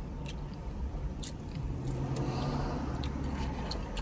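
A person chewing a mouthful of burger close to the microphone, with a few short, sharp wet mouth clicks scattered through, over a steady low background rumble.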